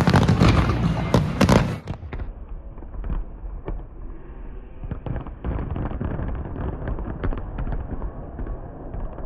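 Fireworks bursting in quick, loud bangs. About two seconds in, the sound drops abruptly to quieter, muffled popping and crackling that carries on.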